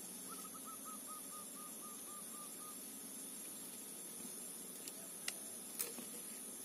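A bird calls a quick run of about a dozen short, clear notes that slows and drops slightly in pitch over about two seconds. A few sharp clicks follow near the end, the last the loudest.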